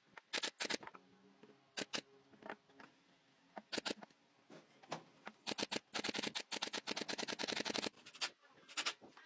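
Sharp clicks of a pneumatic brad nailer firing into wood trim, single shots and pairs. About six seconds in comes a fast run of clicks, around ten a second, lasting about two seconds.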